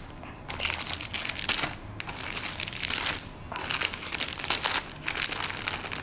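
Clear plastic bags crinkling as a hand rubs and presses on a stack of packaged cloth pouches, in four bouts of about a second each with short pauses between.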